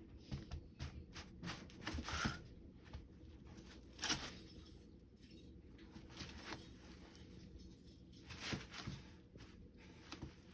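Irregular light scratches and clicks of a cat pawing at and scattering cat litter and cat food, with the strongest strokes about two, four and eight and a half seconds in.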